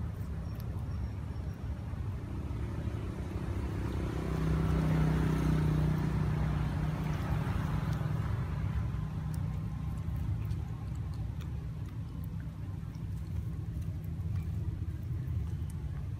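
A motor vehicle's engine hums over a steady low rumble. It grows louder about four seconds in, then fades slowly, like a vehicle passing by.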